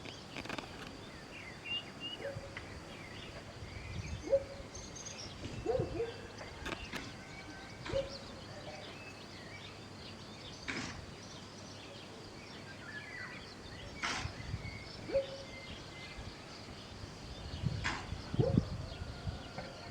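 A horse blowing four short, sharp snorts through its nostrils, a few seconds apart, over outdoor background noise with birds chirping.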